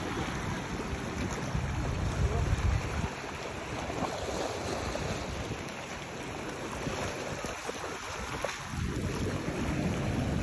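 Wind buffeting the microphone over a steady rush and lapping of choppy sea water. The gusts are heaviest in the first few seconds.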